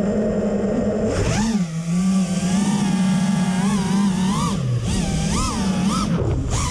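Five-inch FPV racing quadcopter's brushless motors and propellers whining, the pitch rising and falling again and again with the throttle.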